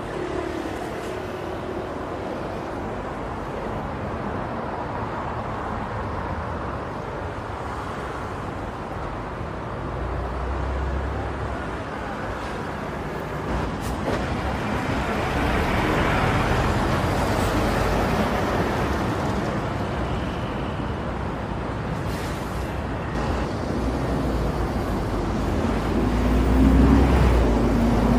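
Road traffic going by, swelling and fading as cars pass, with a car passing close and loudest near the end.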